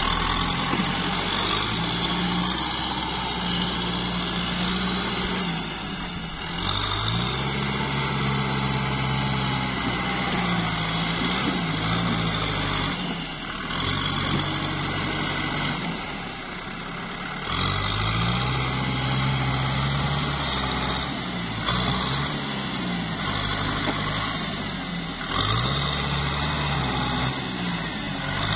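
Kubota M6040 tractor's diesel engine working under load through deep mud and water, its revs rising and falling again and again as the driver pushes on.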